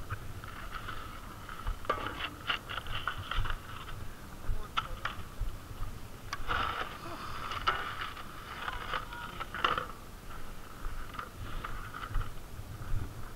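Boots crunching and scraping on crusty snow, with scattered clicks and knocks of snowboard gear at the rack, over a low wind rumble on the helmet microphone.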